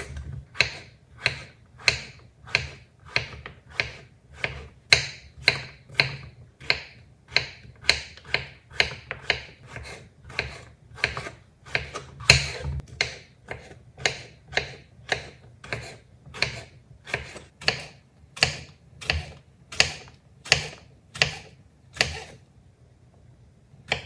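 Porcini mushrooms being sliced: a short, crisp cut repeating about twice a second in a steady rhythm over a low hum, pausing for about two seconds near the end.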